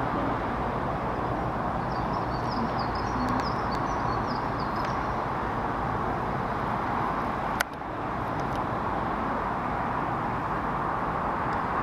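Steady hiss of distant road traffic. A small bird chirps a few times in the first half, and there is a single sharp click about two-thirds of the way through.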